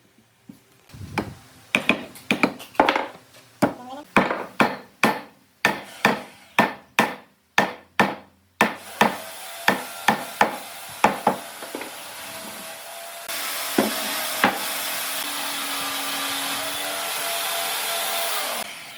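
Hammer or mallet striking wood again and again, about two blows a second. Partway through, a steady machine noise starts under a few more blows, then grows louder and runs on before cutting off near the end.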